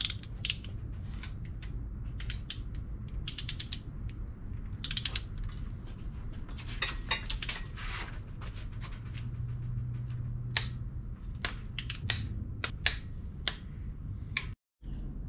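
Ratcheting torque wrench clicking in short runs of quick clicks as the ARP head-stud nuts on a Honda D-series engine are torqued down in steps.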